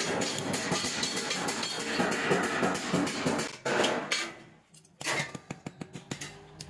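Rapid hammer blows on a thin metal tube set on a steel anvil block, a fast run of ringing metallic strikes. They stop briefly a little past the midpoint, then start again as lighter taps about five a second.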